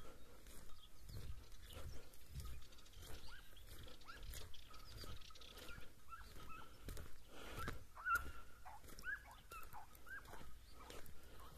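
Pack of hunting hounds baying and yelping, a scattered run of short rising-and-falling cries, as they trail a hare they have put up.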